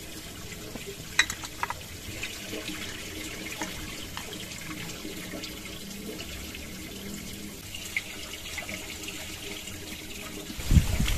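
Steady rush of a nearby stream, with a few light clicks of cookware on a camping pot a little over a second in. Near the end come loud low bumps on the microphone.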